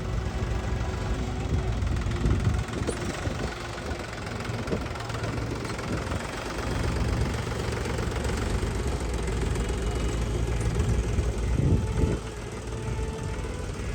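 Diesel engine of a tractor or backhoe loader running steadily, with a few thumps.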